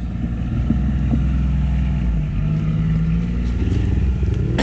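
Off-road vehicle engine running steadily at low revs. Its note rises slightly a little after two seconds in and holds for about a second.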